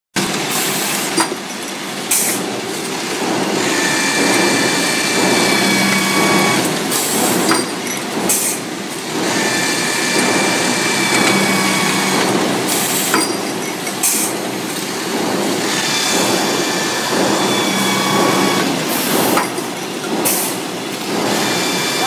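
Machine tool cutting stainless steel under flood coolant: steady machine noise with a high whine while the cutter is in the metal. It repeats in cycles about every six seconds, with short loud noisy bursts between the cuts.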